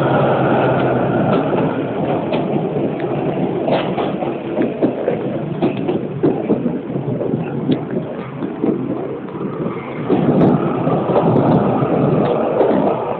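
Diesel railcar KiHa 205 of the JNR KiHa 20 series running at low speed, heard through its open window: the diesel engine running, with wheel and rail noise and a few sharp clicks. Wind buffets the microphone throughout.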